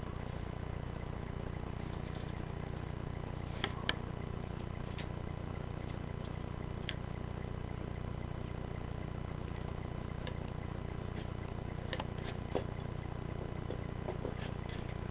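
Chevrolet Impala police cars idling, a steady low engine hum heard through a window, with a few faint clicks.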